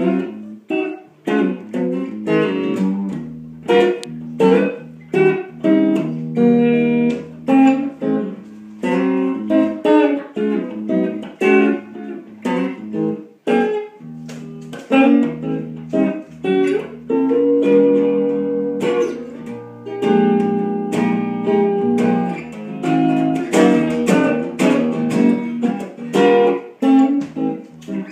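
1979 Gibson ES-355 semi-hollow electric guitar being played: a run of single notes and chords, each struck sharply and left to ring, with some longer held chords about halfway through.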